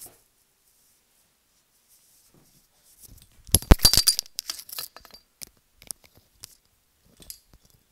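A cordless drill/driver and a chassis plate being set down on a workbench mat: a quick clatter of knocks and clinks about three and a half seconds in, then a few light clicks of handling.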